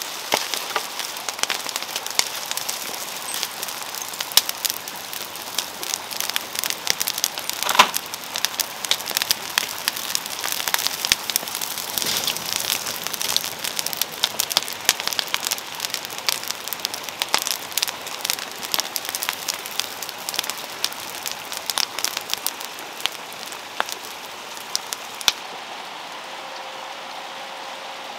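A pile of dry palm fronds and brush burning, with dense, irregular crackling and popping and one sharper pop about 8 seconds in. Near the end the crackling stops, leaving a quieter steady hiss.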